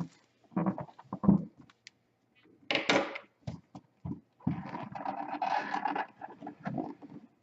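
A cardboard board-game box and its contents being handled and opened: short knocks and scrapes, then a longer stretch of cardboard rubbing and sliding about halfway through.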